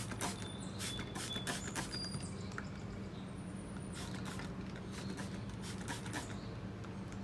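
Trigger spray bottle squirting a water-and-vinegar mix onto a sticker in a series of short spritzes, most of them in the first couple of seconds and a few more later on.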